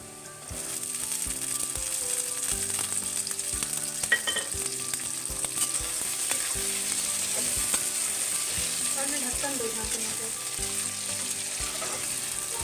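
Vegetables frying in oil in an aluminium kadhai, sizzling steadily. The sizzle turns louder about half a second in, as green peas are tipped into the hot oil. Stirring brings occasional scrapes and knocks of a metal spatula against the pan.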